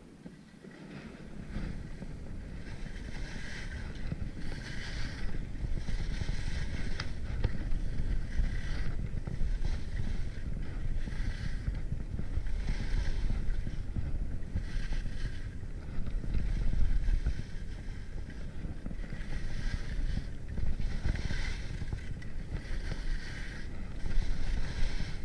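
Skis scraping over packed snow through a run of turns, a hissing scrape every second and a half to two seconds, over a steady low rumble of wind buffeting the GoPro microphone. The rumble builds in the first couple of seconds as the skier gathers speed.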